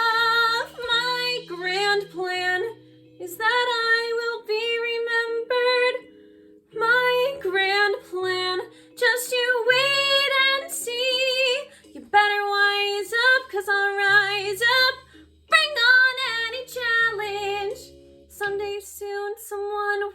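A young woman's solo singing voice in musical-theatre style, with vibrato on held notes, in phrases broken by short breaths. She sings over an accompaniment of sustained low notes.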